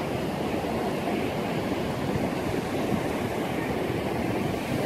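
Ocean surf washing steadily on the shore, an even rushing noise with no break.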